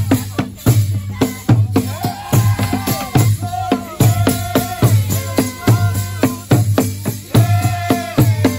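Traditional Rwandan drums (ingoma) beating a steady, driving rhythm of deep thumps and sharp rim-like strokes, with voices singing held, wavering notes over them as accompaniment for a traditional dance.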